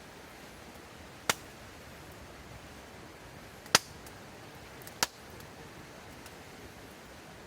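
Wood fire crackling: three sharp, irregular pops from the burning wood, a second or two apart, over a faint steady hiss.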